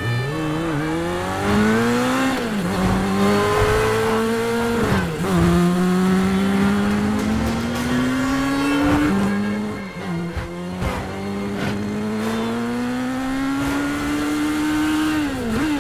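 Motorcycle engine accelerating hard up through the gears. Its pitch climbs steadily and drops sharply at each gear change, about four times.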